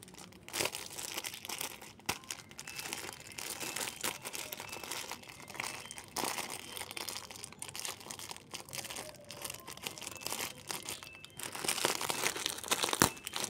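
Thin plastic bag crinkling and rustling as it is handled and cut open with scissors, in irregular crackles with sharp snips. It gets louder near the end, with one sharp click.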